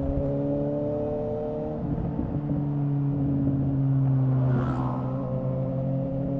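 Suzuki GSX-S750's inline-four engine running through a Yoshimura R11 exhaust with the dB killer removed, holding steady revs under way. The note dips briefly in pitch with a short hiss about three-quarters of the way in, then carries on.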